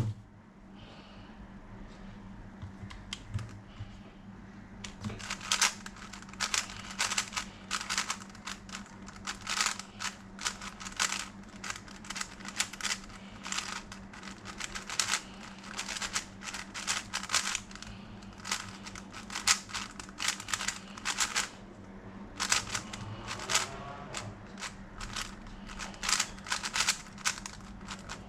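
Valk 4 magnetic 4x4 speedcube being turned fast, its layers clacking in rapid runs. The clacking starts about five seconds in and stops briefly near the three-quarter mark before going on.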